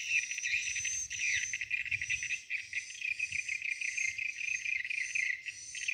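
Steady chorus of crickets or similar insects, a dense high trilling with a short higher chirp repeating a little under twice a second.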